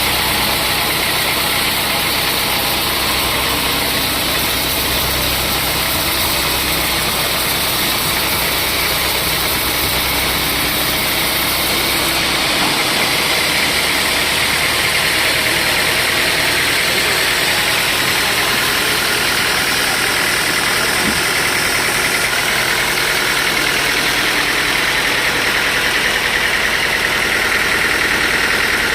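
Sawmill machinery running steadily, a loud continuous mechanical noise. About twelve seconds in, a low hum drops away.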